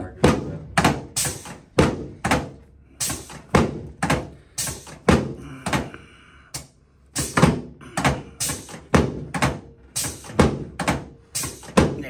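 A run of dull thuds, about two a second with a short pause a little past the middle, as a chiropractor's hands thrust repeatedly into the patient's lower back and pelvis on a padded treatment table.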